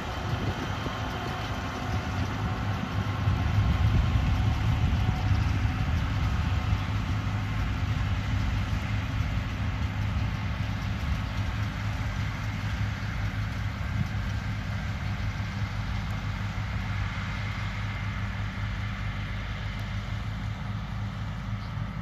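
Diesel farm tractor running steadily under load, pulling a Vermeer round baler through windrows of hay. It is loudest a few seconds in, then eases off gradually as it moves away.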